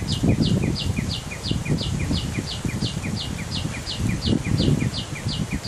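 A small animal's high call repeating evenly about three times a second, each a short downward note, over loud uneven low rustling noise.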